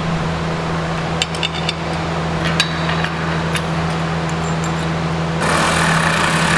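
Hand tools clinking against a steel wall-boom mounting bracket: several sharp metallic clicks and taps with a short ring, then about a second of harsh rasping near the end as a wrench is worked on the bolts. A steady low hum runs underneath.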